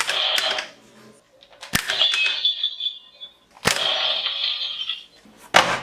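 Toy electronic scoring target struck by projectiles: a sharp hit followed by a high electronic beeping sound effect of about a second, three times over, with another hit near the end.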